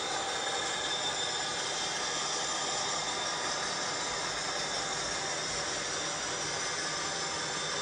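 Steady running sound of an OO-gauge model railway, with the Cavalex Class 56's DCC sound decoder playing its diesel engine sound through the loco's small speaker, as a hiss-laden drone.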